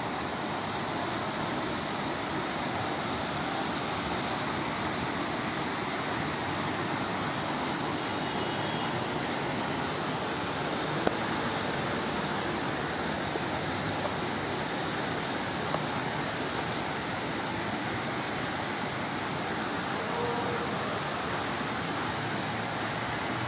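Heavy rain pouring down in a steady hiss, with a few sharp taps of drops striking something, the loudest about halfway through.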